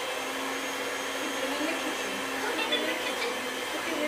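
Electric stand mixer running with a steady motor hum as it beats a thick mix of crushed Oreos and cream cheese in a stainless steel bowl.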